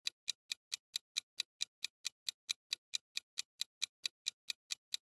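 Countdown timer sound effect: clock-like ticking, quick and even, about four to five ticks a second.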